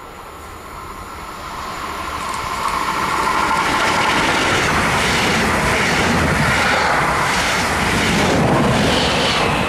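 Red double-deck regional passenger train approaching and passing close by. It grows louder over the first three seconds, then its wheels and coaches run past with a steady, rhythmic beat.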